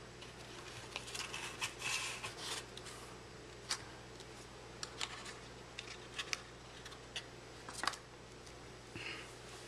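Hands handling a small hinged display box and an encased trading card: scattered light clicks and short rustles, with a few sharper clicks.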